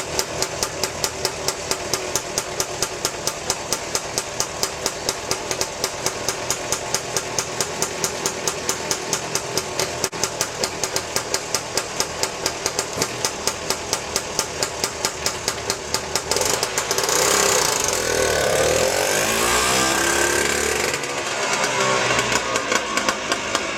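Scootacar microcar's small engine running with a slow, even beat of about five pulses a second. About 17 s in it turns into a fuller sound that rises and falls in pitch as the engine is revved.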